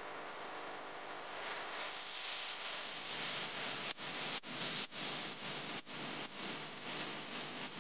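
Steady hiss of background noise that cuts out briefly four times about halfway through.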